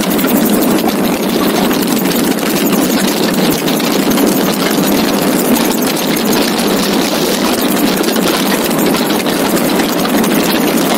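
Magni M16 gyrocopter's engine idling through a simulated engine-failure glide and landing, under a steady rush of airstream noise in the open cockpit.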